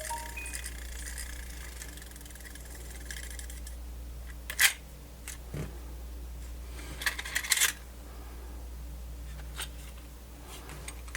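A few sharp clicks and light clacks at irregular intervals from handling the opened Sony MZ-N420D MiniDisc player and its mechanism, over a steady low hum; a faint high whine fades out a few seconds in.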